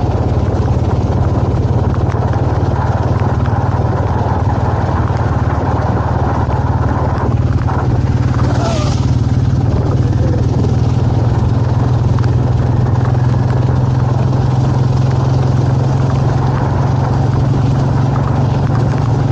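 Royal Enfield motorcycle engine running steadily at an even speed.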